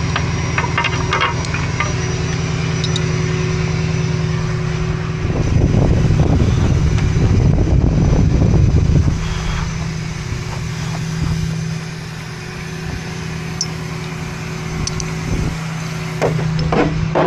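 Tractor engine running steadily, growing louder for about four seconds in the middle, with a few light metallic clanks near the start and near the end.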